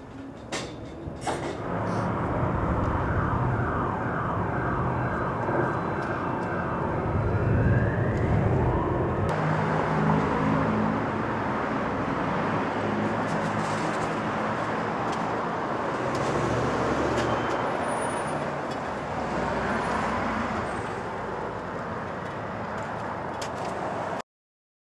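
City street traffic: cars and engines passing in a steady rush, with a few knocks at the start and a rising whine in the first several seconds. The sound cuts off suddenly near the end.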